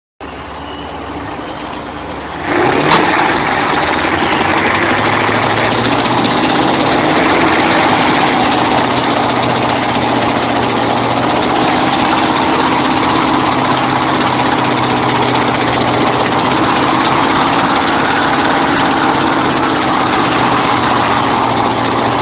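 Heavy diesel engine of a Kirovets articulated tractor running, revving up with a rising sweep about two and a half seconds in and then held at high revs, working hard with its wheels bogged in mud.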